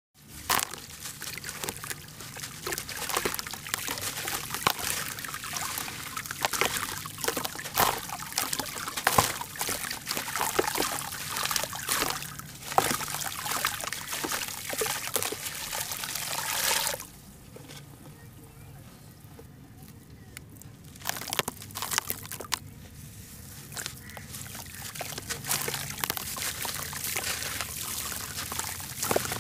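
Moulded lump of charcoal ash crumbling in the hands into a tub of water: gritty crunching and crackling, with trickling and splashing as the pieces drop into the water. It goes quieter for a few seconds just past the middle, then the crumbling starts again.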